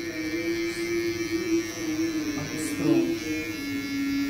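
Cordless electric hair clipper buzzing steadily as it trims the nape for an undercut, under background music whose melody of long held notes is the loudest thing.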